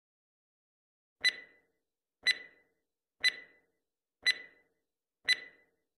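Countdown timer sound effect: five sharp ticks, one a second, each with a brief ring.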